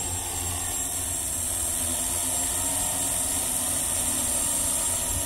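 Large multirotor drone's electric motors and propellers running steadily while it stays on the ground, a continuous hum.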